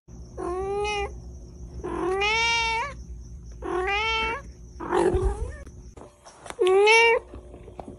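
A domestic cat meowing repeatedly: four drawn-out meows about a second apart, each lasting half a second to a second. About five seconds in there is a shorter, rougher call.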